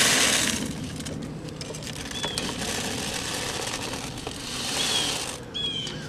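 Goat feed poured from a scoop into a feeder, a rattling rush that stops about half a second in and comes again from about two to five seconds in. A few short high chirps sound over it.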